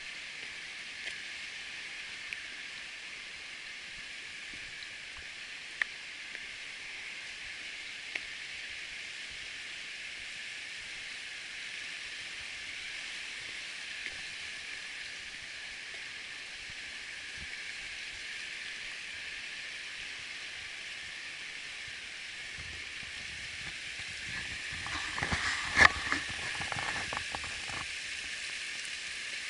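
Steady rushing hiss of creek water flowing over a shallow gravel bed, with a few light clicks. Near the end comes a short burst of crunches and knocks, the loudest of them sharp.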